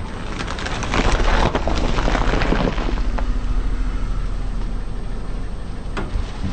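A car tyre rolling over a whole head of cauliflower, crushing it with a run of crackling snaps for about two seconds, over the car's engine running low and steady.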